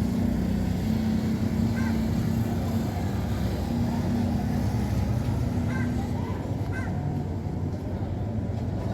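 Steady low engine drone, like a motor vehicle running nearby, with a few faint short chirps over it.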